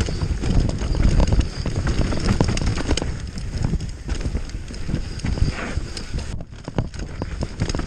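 Mountain bike descending fast over a dry dirt trail: knobbly tyres rumbling on the ground, wind buffeting the camera microphone, and a stream of sharp knocks and rattles from the bike as it hits roots and bumps. The rumble drops out briefly about six and a half seconds in.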